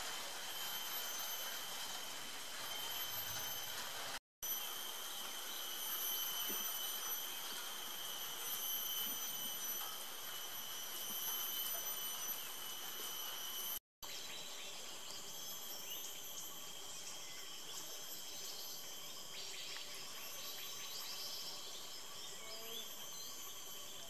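Ambient drone of insects with steady high-pitched tones, cutting out briefly twice, after which the background changes and faint high chirps come through.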